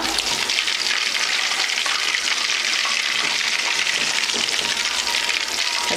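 Batter-coated chicken lollipops deep-frying in hot oil: a steady, dense sizzle and crackle.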